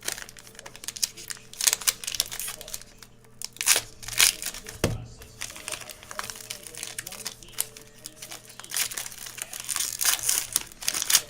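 Crinkling and rustling of trading-card packaging and cards being handled and opened, in irregular bursts that grow busier near the end, with a single thump about five seconds in.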